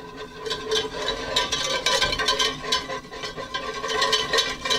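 Wire whisk scraping and clattering against a stainless steel pot in quick strokes, about three or four a second, the pot ringing faintly under it, as flour is worked into melted butter to start a roux.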